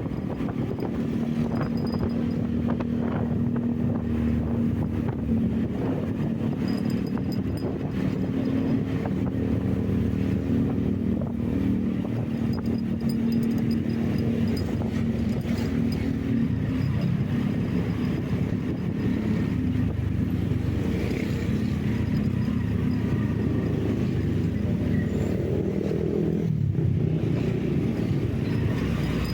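Vehicle engine running steadily under way, with road and wind noise. The engine hum drops slightly in pitch a little past halfway.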